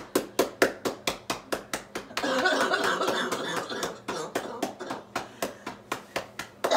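Cupped hands clapping rhythmically on a person's upper back, about five or six claps a second: chest percussion over the top of the lung to loosen phlegm from a COVID-19 chest infection. From about two seconds in to about four and a half, a long breathy exhale runs under the claps.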